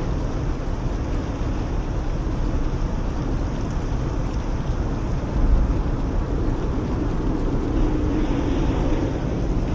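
Steady, loud low rumble of strong wind around a wildfire fire whirl, with a brief stronger low surge about five and a half seconds in.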